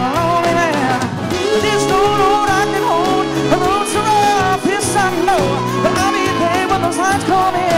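Live country band playing with electric guitar and pedal steel, and a male lead singer singing over it.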